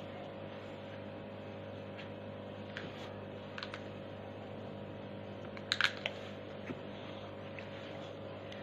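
A few light clicks and taps of drinking cups being handled on a tray, the loudest a quick cluster of clicks about six seconds in, over a steady low hum.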